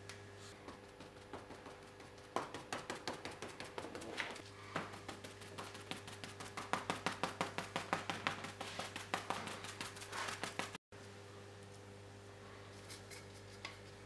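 Brisk hand strokes rubbing over the surface of a lithographic stone, about five a second, starting about two seconds in and cutting off abruptly near eleven seconds, over a steady electrical hum.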